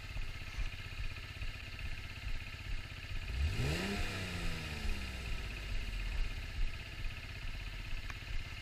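Small sport motorcycle's engine idling, blipped once about three and a half seconds in: the pitch rises sharply for about half a second, then falls away over the next two seconds back to idle.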